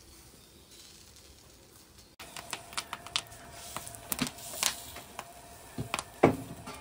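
A flat metal spatula tapping and scraping against banana-leaf-wrapped wheat ada on a black griddle: a run of sharp clicks with a few louder knocks, starting about two seconds in. A faint sizzle of the leaf packets cooking runs underneath.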